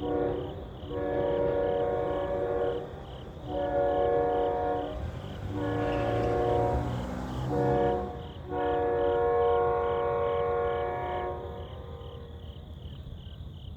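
An Amtrak P42DC locomotive's multi-tone air horn sounds a string of blasts, mostly long with a couple of short ones, as the train passes a grade crossing. The rumble of the train going by swells about halfway through, and after about 11 seconds the horn stops and the train fades away.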